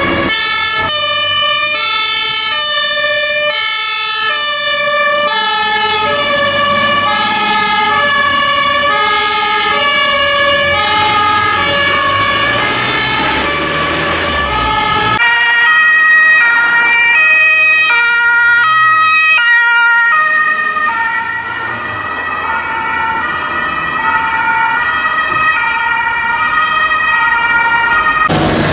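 German fire-engine two-tone siren (Martinhorn) sounding its alternating high-low tones as the truck drives off on a call. About halfway through the tones change to a different pair, with a steady high whine running beneath them.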